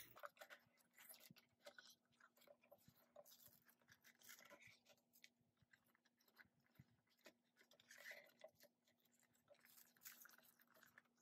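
Faint crinkling and rustling of a clear glitter PVC cover being handled and slid onto a hard-cover A5 ring binder, with scattered soft clicks and taps.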